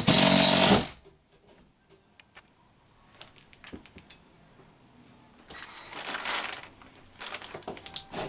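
A power drill fitted with a nut driver runs briefly, driving a mounting screw into the wall, and stops just under a second in. After that come scattered light clicks and two soft rustling, scraping spells of hardware being handled.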